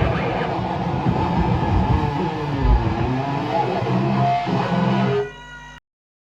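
A live rock band playing, electric guitar to the fore over bass, with a wavering, bending melodic line and occasional low thuds. About five seconds in the music drops away, and the recording cuts off abruptly into silence.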